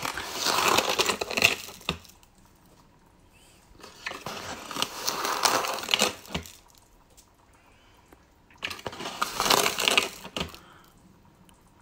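Sugar being poured into a plastic mixing bowl on a kitchen scale in three separate goes of about two seconds each, a gritty hiss with quiet pauses between, while 25 grams are weighed out.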